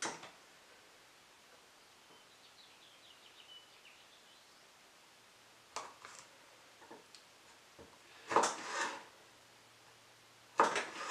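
Kitchen knife slicing a bell pepper on a wooden cutting board: a few separate cuts and knocks of the blade on the board with quiet between them, the loudest a longer slice about two-thirds of the way through.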